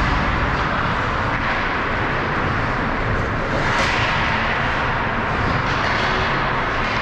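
Steady, even noise of an ice hockey rink during play, with a brief faint sharp sound about four seconds in.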